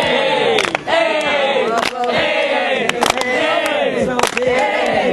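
A group of voices chanting or singing together in repeated rising-and-falling phrases, with sharp hits about once a second.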